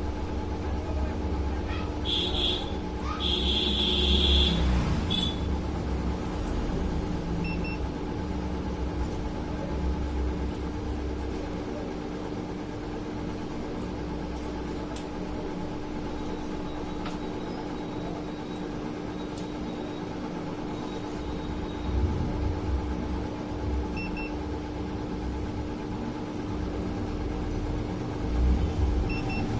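Steady machine hum with a constant tone and a low rumble underneath, as from bench equipment running. Brief high-pitched tones sound a few seconds in.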